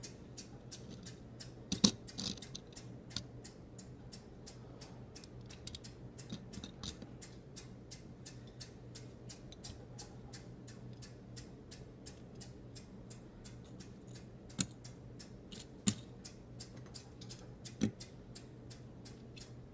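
Faint rapid clicking and light tapping over a low steady hum, with a few louder sharp clicks about two seconds in and again near the end, typical of die-cast cars and their plastic packaging being handled.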